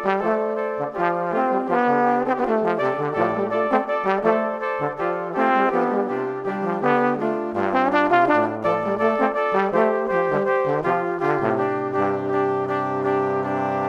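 Background music: quick changing notes over a moving bass line, settling on a long held chord near the end.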